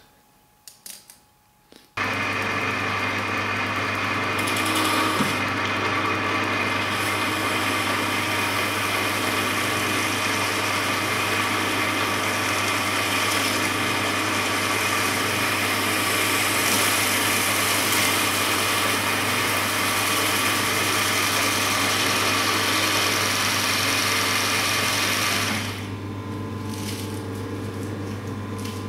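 Myford lathe running with its tool turning a yellow plastic gear blank down to its outside diameter: a steady motor hum under a continuous cutting hiss. About 26 s in the cutting stops and the lathe runs on more quietly.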